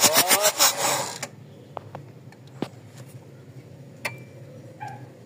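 Starter cranking the Mazda BT-50's 3.0 diesel engine in a rapid, even rhythm, then stopping about a second in without the engine catching. A few light clicks follow.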